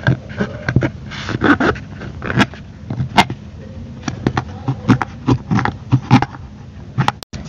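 A knife scraping and cutting into a small medicine bottle, with irregular scrapes and clicks of the blade on the bottle.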